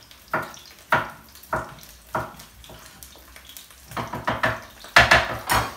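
Chef's knife chopping garlic on a wooden cutting board: four evenly spaced chops about every half second, then a quicker run of chops from about four seconds in, the loudest near the end.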